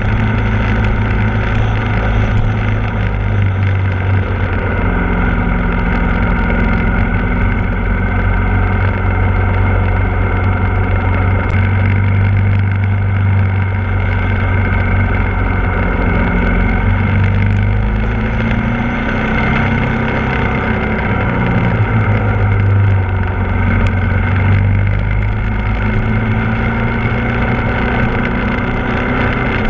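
Ducati Multistrada 1260 S's V-twin engine running at steady road speed, its pitch shifting a few times with throttle and gear changes.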